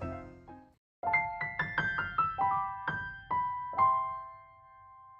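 Background piano music: one phrase fades out, then after a short gap a quick run of bright notes steps downward and settles on a held chord that slowly dies away.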